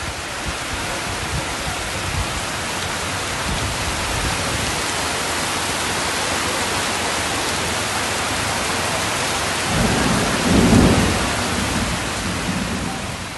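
Heavy rain pouring steadily onto a flooded street, a dense, even hiss. About ten seconds in, a low rumble swells and fades; it is the loudest moment.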